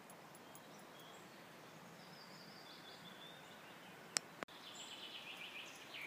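Songbirds singing faintly over a steady background hiss: a short phrase about halfway through and a louder, rapid trill in the last second or so. A single sharp click about four seconds in is the loudest sound.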